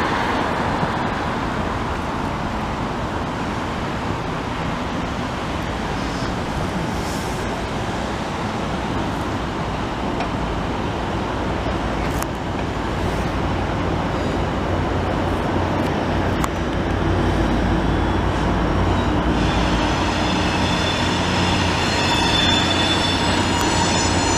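Commuter train of bilevel passenger coaches rolling past on an elevated line, a steady rumble of wheels on rail. From about two-thirds in, a deeper diesel drone builds and a high ringing squeal from the wheels joins as the train's EMD F59PH locomotive draws near.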